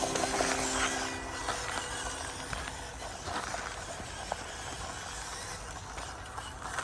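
JJRC Q65 RC crawler, a scale Willys MB jeep, driving over rough ground: a steady hiss of crunching with scattered small clicks.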